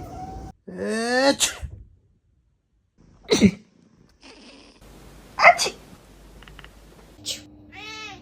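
A person sneezing three times, about two seconds apart, the first with a rising 'ahh' before the burst. A cat gives a short meow near the end.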